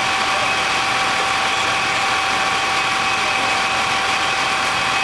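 Fire engine running steadily at standstill: an even engine drone and hiss with a constant high whine, unchanging throughout.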